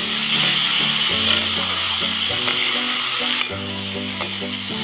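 Chicken biryani mixture frying in a wok over a wood fire: a steady sizzle, with a ladle stirring the food through the pan.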